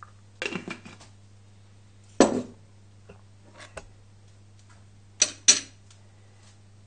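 Kitchen utensils handled on a wooden cutting board: a few clicks and clatter, then a loud knock about two seconds in and two sharp clicks in quick succession past the five-second mark. A steady low hum runs underneath.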